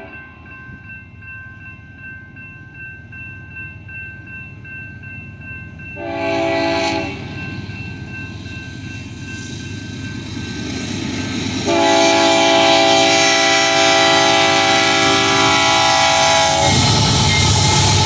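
Union Pacific freight train locomotive air horn sounding a chord for grade crossing: a short blast about six seconds in, then a long loud blast from about twelve to seventeen seconds, the closing short-long of the crossing signal. A crossing bell rings faintly at the start, and near the end the lead diesel locomotives pass with a loud low engine rumble.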